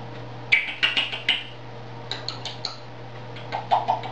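African grey parrot clicking: three quick runs of sharp clicks, about a second apart.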